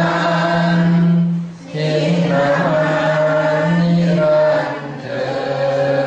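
Thai lay men and women chanting together in sarabhanya style, a melodic Buddhist recitation, with long held notes. There is a short break for breath about a second and a half in and another dip near five seconds.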